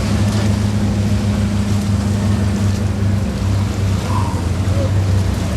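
An engine running steadily at a constant speed, a low hum that neither revs up nor drops.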